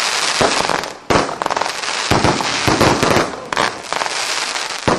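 Fireworks going off: dense, continuous crackling from fountains of sparks and bursting stars, with sharp pops, and a brief lull about a second in.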